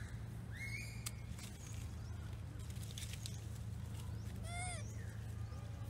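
Baby long-tailed macaque crying: two short, high, arching squeals, one about half a second in and a louder one near the end, over a steady low hum.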